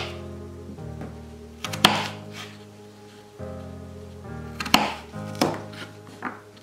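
Kitchen knife cutting through sweet potato onto a wooden cutting board: a few sharp, unevenly spaced chops, the last one lighter. Soft background music with held notes plays throughout.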